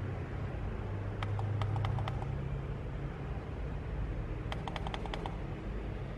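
Two quick runs of small clicks from the knob on an Aputure Nova P600c LED light's control panel being turned to step the colour-cycle speed setting, over a steady low hum.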